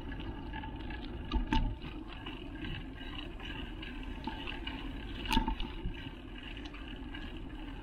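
Mountain bike rolling along a paved path: a steady hum of tyres and drivetrain, with a few sharp rattles or clicks about a second and a half in and again a little past halfway.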